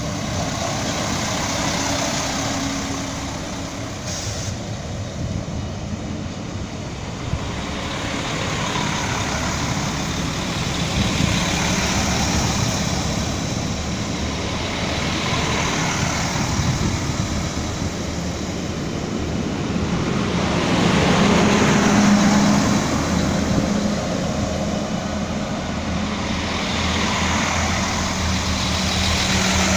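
Alstom Coradia LINT diesel multiple unit's underfloor diesel engines running beside the platform, a steady drone with a low engine note that swells louder about twenty seconds in.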